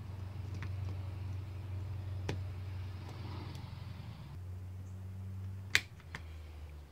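A few faint, sharp metal clicks as snap-ring pliers work a retaining clip onto the starter clutch hub, the loudest near the end as the clip seats, over a steady low hum.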